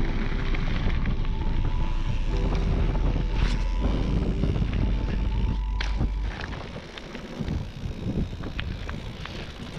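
Wind buffeting the microphone of a camera riding along on a moving mountain bike, with the tyres rumbling over the gravel path and a couple of sharp knocks from bumps. The noise drops off noticeably about six seconds in.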